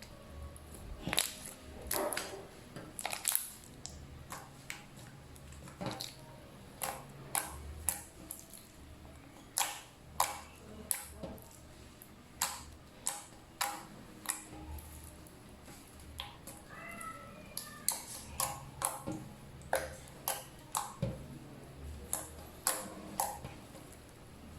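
Clear-glue glitter slime being pressed and kneaded by hand, making irregular sharp clicks and pops, roughly one a second.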